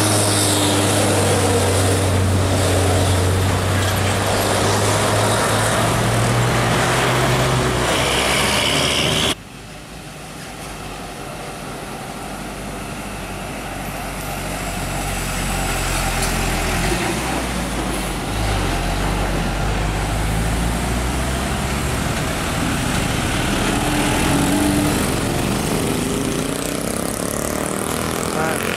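Heavy Isuzu diesel trucks passing close by on a steep bend, their engines running under load. A steady low engine drone cuts off abruptly about nine seconds in. A second truck's engine drone then builds steadily as it comes nearer, with a change in its note partway through.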